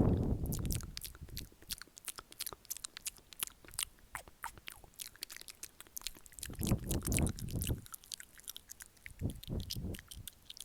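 ASMR mouth sounds close to the microphone: fast wet clicks and smacks of the lips and tongue, several a second. A few louder low, muffled rumbles come at the start, around seven seconds in and again around nine seconds in.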